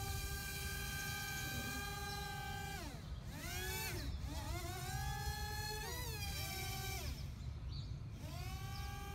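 Petrone quadcopter's propeller motors whining as it drives the boat hull across the water, over a low rumble. The pitch drops sharply about three seconds in, again near four and seven seconds, and glides back up each time as the throttle is eased off and opened again.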